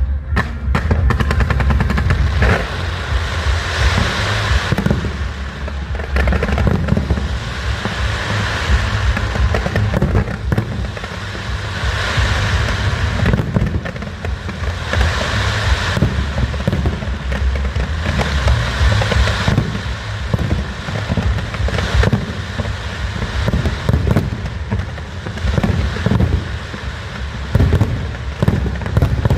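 Aerial fireworks display: a dense, continuous run of shell bursts and bangs, with recurring stretches of crackling.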